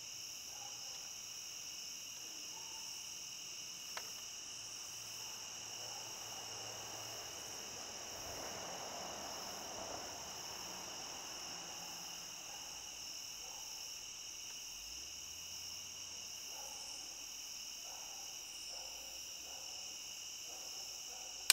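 Steady chorus of crickets and other night insects, several high-pitched continuous trills layered together, with one faint click about four seconds in.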